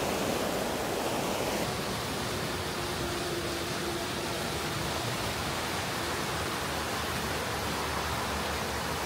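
Steady rushing noise of wind on the microphone and tyres rolling while riding an e-bike.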